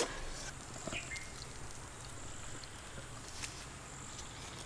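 Mostly quiet handling of a dragon fruit slice as its skin is peeled off by hand, with a few faint soft clicks about a second in and again past the middle.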